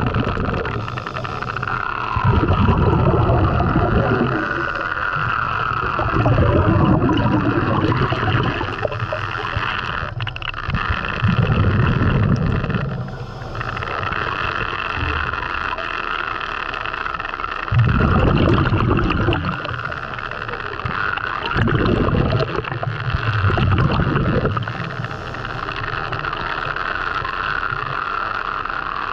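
Underwater sound of a diver breathing on a regulator: exhaled bubbles rumble in swells every four to six seconds over a steady hum.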